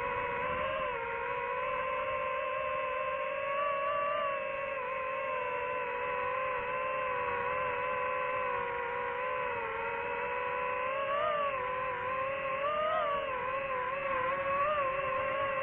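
DJI FPV drone's motors and propellers whining steadily, the pitch wavering up and down a little several times in the second half as the throttle changes.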